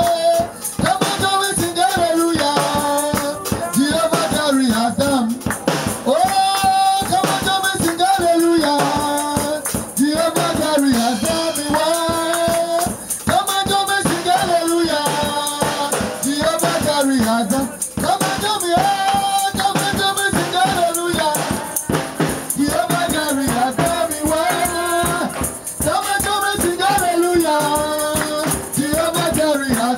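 Praise song: voices singing a repeated chorus melody over rattling hand percussion that keeps a fast, steady beat.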